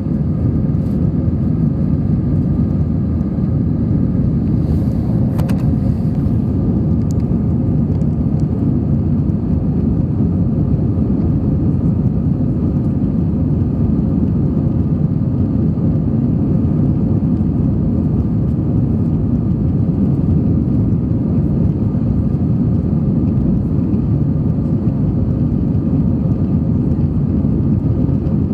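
Steady jet airliner cabin noise during the climb after takeoff: the low, even rush of engines and airflow with a faint steady hum. A brief click about five seconds in.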